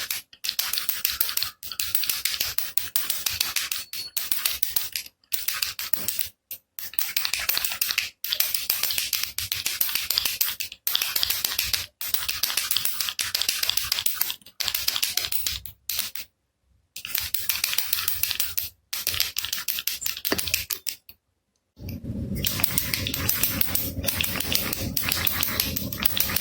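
Baby rattle shaken hard, its beads clattering in quick dense rattles broken by brief pauses. From about 22 seconds in, the rattling goes on without gaps and sounds fuller and lower.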